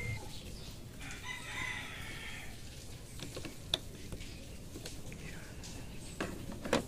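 A rooster crowing once, starting about a second in and lasting about a second and a half. Then a few sharp metallic clicks of a hand tool on a car battery's terminal clamp, the loudest near the end.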